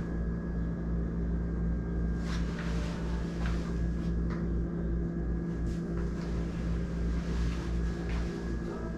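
A steady low hum that holds the same pitch throughout, with a few faint taps and knocks.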